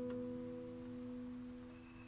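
Background music: one sustained chord ringing and slowly fading.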